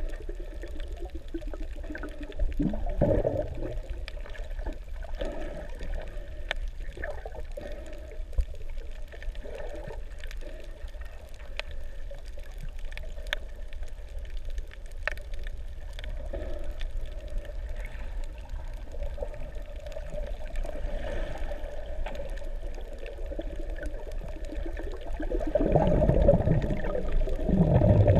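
Water sloshing and gurgling heard underwater, muffled and low, with scattered sharp clicks. About three seconds in and again near the end it swells into louder rushing surges.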